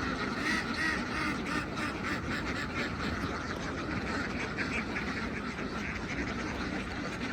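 A large flock of domestic ducks quacking all together, many overlapping calls in a continuous din, over a steady low rumble.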